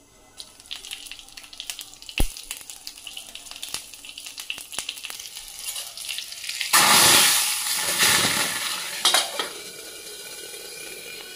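Cumin seeds, red chilli and garlic crackling and popping in hot oil in a small steel tadka ladle. About seven seconds in, the hot tempering is poured into cooked arhar dal and gives a sudden loud sizzle that fades over the next few seconds.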